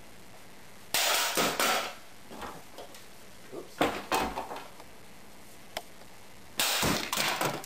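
A baseball bat smashing a small clock: several crashing blows with clattering breakage. They come in bursts, about a second in, around four seconds, and again near the end.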